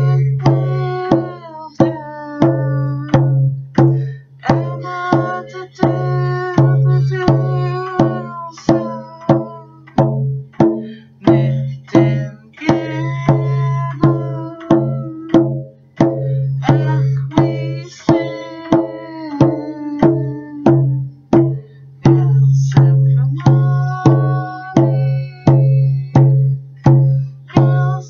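A woman singing a Nisga'a berry-picking song over a painted hide hand drum beaten in a steady, even beat. Each stroke rings with a deep tone.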